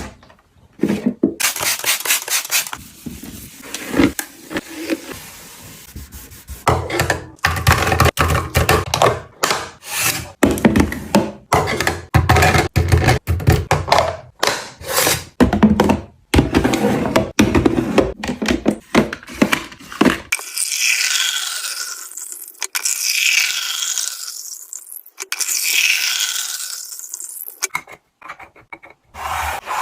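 Containers, bottles and packages being handled and set into a fridge: a quick run of knocks, clicks and taps with rustling and scraping between them. For several seconds in the second half the sound turns thin and hissy, mostly rustle and scrape.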